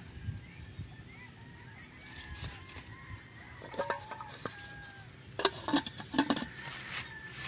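Chickens clucking in the background. Near the end, a metal lid clanks several times as it is set onto a metal cooking pot.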